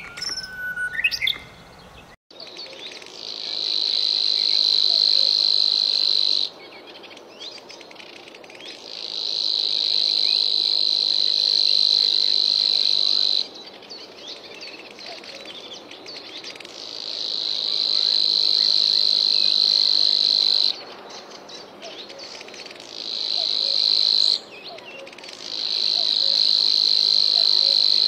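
Insect calling in long, steady, shrill buzzes, each lasting several seconds, swelling and then cutting off abruptly, five times over. Brief bird chirps sound in the first two seconds.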